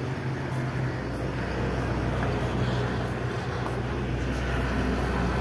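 Steady low drone of an engine or motor running, getting slightly louder about a second in.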